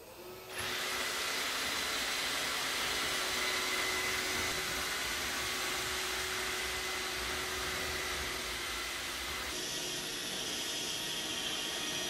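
iRobot Roomba robot vacuum starting up about half a second in and then running steadily as it cleans, its suction fan and brushes giving an even noise with a faint whine. The sound shifts slightly about nine and a half seconds in.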